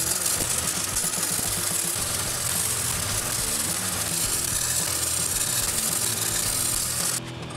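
Arc welding on steel chain links: the steady crackle and hiss of the welding arc, which cuts off suddenly near the end.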